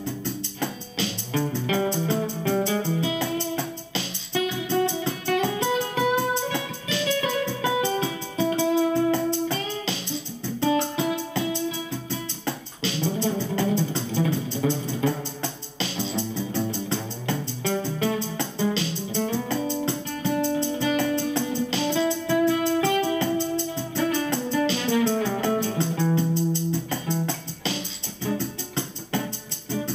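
Acoustic guitar played through an overdrive pedal into a small ten-watt amp, picking a melody over low bass notes, with strummed accents every few seconds.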